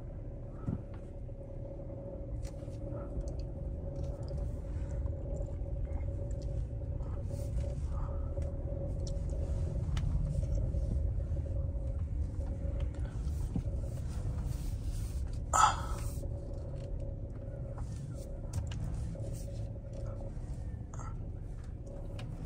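Low, steady rumble of engine and tyre noise inside a Chrysler 300's cabin as it drives slowly, with the radio off. A single sharp knock about fifteen seconds in.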